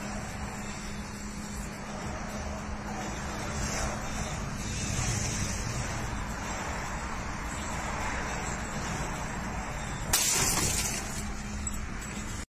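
Steady road and engine noise heard inside a moving car, with a low steady hum. About ten seconds in, a sudden loud burst of noise that dies away over about a second.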